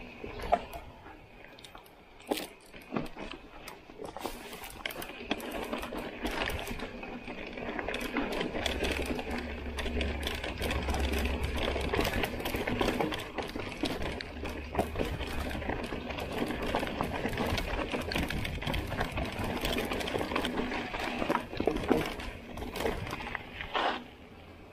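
Mountain bike clattering down a loose, rocky track: tyres crunching over stones, the bike's parts rattling continuously, with many sharp knocks. The clatter drops off near the end as the bike rolls onto smooth tarmac.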